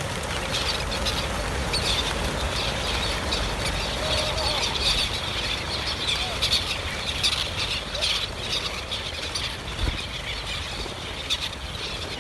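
A flock of chukar partridges calling and chirping, many short calls overlapping throughout, over a low rumble.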